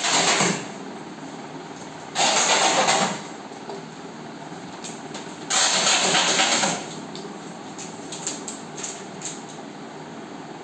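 Packaging being torn and pulled off a tall cardboard carton by hand: three loud rasping tears, the first right at the start, one about 2 s in and one about 5.5 s in, each lasting up to about a second. A steady background hiss runs between them, and a few light handling clicks come near the end.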